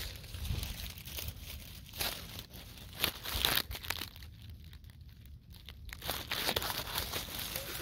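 Dry leaves and pine needles crackling and rustling in short, irregular bursts as they are brushed and moved close to the microphone, dying down for a couple of seconds in the middle.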